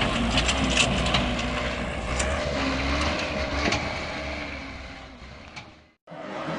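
Engine of a dump truck stuck in mud, running under load as it tries to drive out, with a steady low rumble and scattered knocks. The sound fades out about five seconds in, and there is a short gap of silence at a cut.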